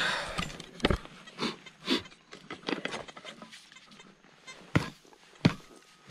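Digging tool striking into stony ground, about six separate chops spread unevenly, as a metal detector target is dug out.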